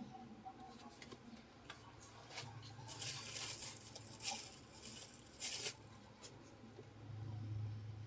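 Light scratching and scraping with scattered small clicks, densest about three to six seconds in, over a low steady hum that grows louder near the end.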